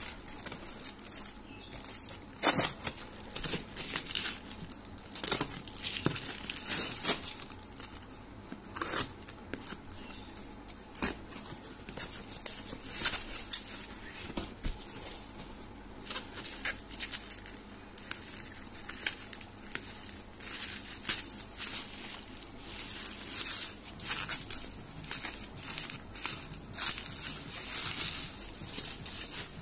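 Packaging being unwrapped by hand: a torn-open cardboard box, a plastic courier bag and bubble wrap crinkling, rustling and tearing, with bubble wrap being cut open with scissors. Irregular crackles throughout, the sharpest about two and a half seconds in.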